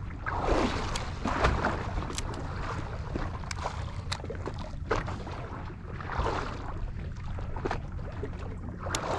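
Small waves lapping and slapping against the hull of a drifting fishing boat, in irregular swells a second or so apart, over a steady low wind rumble on the microphone, with a few light ticks.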